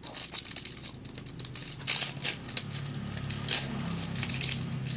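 Clear plastic wrap crinkling and crackling in irregular bursts as it is peeled by hand off a new motorcycle brake lever, loudest about two seconds in. A low steady hum comes in underneath from about three seconds in.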